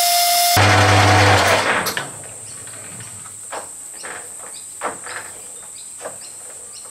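Metal lathe turning a forged steel crankshaft, switched off about half a second in: the motor drops to a low hum and the chuck spins down over about a second and a half. A quieter steady high-pitched chirring follows, with a few faint clicks.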